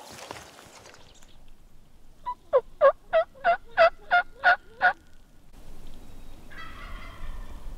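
Turkey yelping: a loud, close series of eight evenly spaced yelps, about three a second, each note dropping in pitch.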